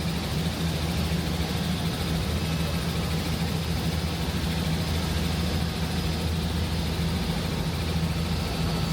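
Tour helicopter's engine and rotor noise heard from inside the cabin: a steady, unchanging drone in level flight.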